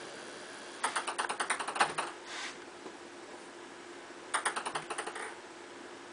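A ping pong ball bouncing and clattering on hard surfaces. There are two quick runs of light, sharp clicks, one about a second in and one a little past four seconds.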